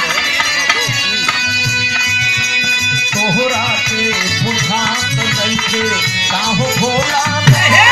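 Birha folk music: harmonium chords held under a steady dholak beat, with a singer's voice coming in over them about three seconds in.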